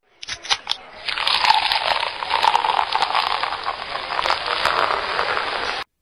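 Dense crackling noise full of fine clicks, after a few separate clicks in the first second; it cuts off abruptly near the end.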